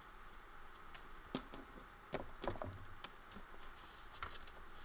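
Paper being folded and pressed around a journal cover: a handful of sharp crinkles and taps from handling the paper and craft tools, several close together around the middle.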